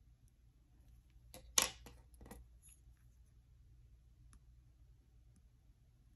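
A short cluster of clicks and clatter about one and a half seconds in, as a plastic nail-strip tool is set down on the tabletop and a wooden cuticle stick is picked up. A few faint taps follow over a low room hum.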